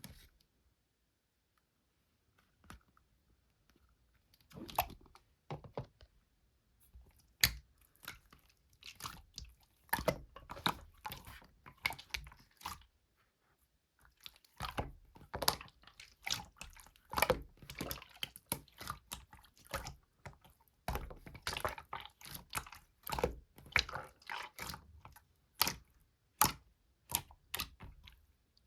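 Slime being played with by hand: irregular squishing clicks and crackling pops. They start sparse a few seconds in and come thick and fast from about halfway.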